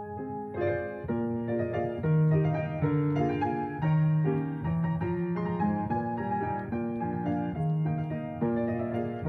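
Solo piano music: chords and melody over repeated low bass notes.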